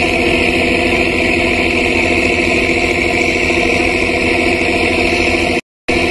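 A river launch's engine running steadily with an even, unchanging hum. The sound cuts out completely for a moment near the end, then resumes.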